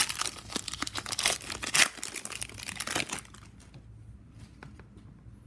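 A trading-card pack wrapper being crinkled and torn open by hand: dense crackling for about three seconds, then it stops.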